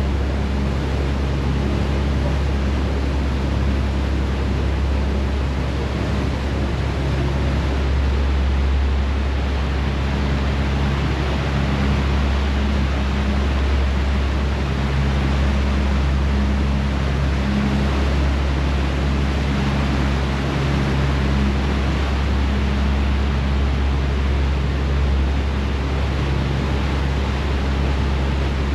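Harbour ferry's engines running steadily under way, a low drone with a faint higher hum that comes and goes, over the rush of the churning wake and wind.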